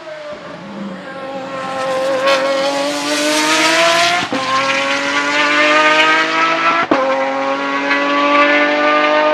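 Pagani Zonda Revolución's 6.0-litre Mercedes-AMG V12 at full throttle, rising in pitch as it passes and pulls away. Two brief cuts, about four and seven seconds in, are upshifts, each followed by the pitch climbing again.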